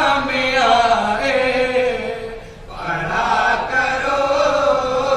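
A group of men chanting a naat together in long, drawn-out phrases, with a short break about two and a half seconds in.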